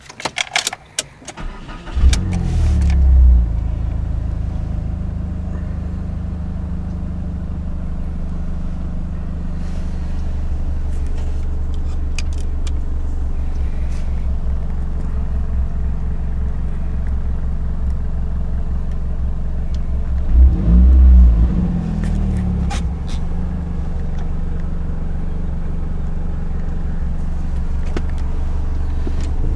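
PT Cruiser engine started from the cabin: a few clicks, then it catches about two seconds in with a short rev and settles into a steady idle. Around two-thirds of the way through it is revved briefly once more, then idles on.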